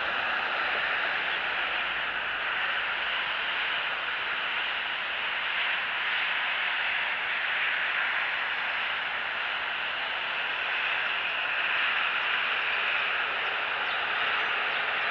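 Steady static-like hiss at an even level, with no distinct calls or other events standing out.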